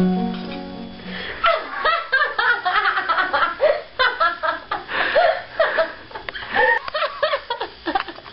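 A held piano note fades out within the first second, then a woman laughs hard and continuously, in quick repeated peals.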